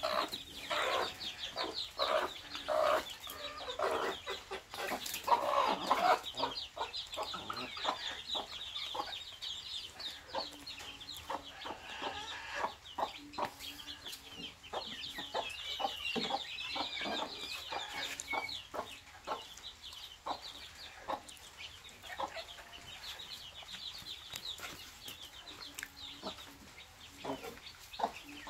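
Mother hen clucking low and repeatedly to her brood while her chicks peep continuously in high, short cheeps, with scattered soft clicks.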